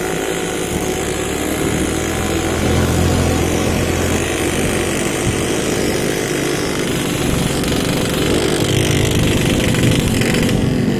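Small motorcycle engine running steadily under way, heard from the rider's seat with wind rush over it.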